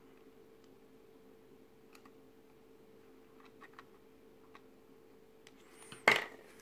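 Faint small ticks of plastic model parts being handled, then about six seconds in a single sharp knock as a plastic glue bottle is set down on the cutting mat, over a steady hum.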